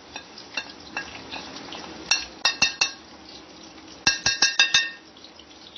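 Steel spoon tapping and clinking against the dishes as spice powder is knocked off it into a steel bowl: a quick run of about four clinks about two seconds in and another of about six just after four seconds, each with a short metallic ring.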